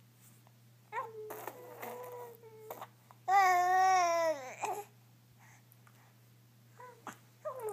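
Baby babbling and blowing raspberries: a held, buzzy vocal sound with spluttering lip noise about a second in, then a loud, long call a little after three seconds whose pitch drops as it ends, and a few short sounds near the end.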